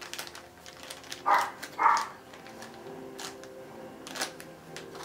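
Plastic packaging being handled as kit parts are unpacked from a box: scattered light clicks and rustles, with two short louder crinkles around a second and a half and two seconds in.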